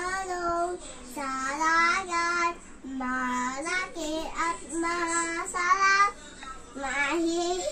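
A young girl singing unaccompanied, in short phrases of held notes with brief breaks between them.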